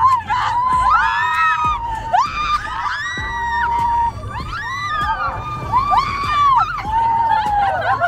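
Several roller coaster riders screaming in long, high shrieks, one after another and overlapping, over a low rumble of the moving train and wind.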